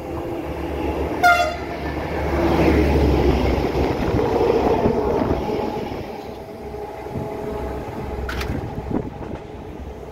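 A locomotive sounds one short horn blast about a second in, then passes close by with engine and wheel noise that swells and fades away.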